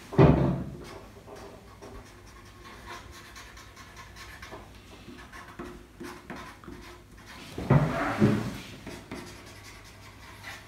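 Black marker pen scratching on silkscreen prints as they are signed, faint and intermittent. It is broken by a person's loud breathing out, once at the start and again twice about eight seconds in.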